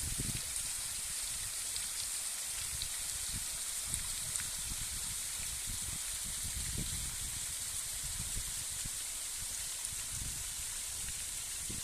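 Waterfall: a steady rush of falling water, with irregular low rumbles underneath.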